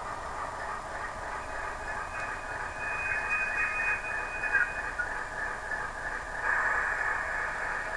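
Simulated ALCO 251 V-16 diesel engine sound from a model locomotive's DCC sound decoder, played through a tiny speaker and heard as a thin, hissy engine noise. A thin high tone comes in about a second and a half in and stops about five seconds in, and the noise swells louder near the end.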